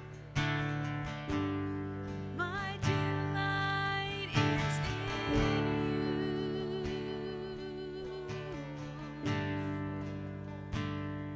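Slow worship music: chords struck every second or two on an acoustic guitar and left to ring out, with a voice singing a held, wavering melody over them.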